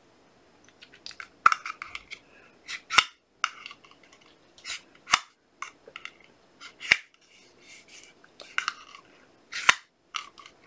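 Plastic drinking straw being bitten flat between the teeth to make a reed: sharp plastic clicks and crackles, a louder click roughly every two seconds with softer crinkling between.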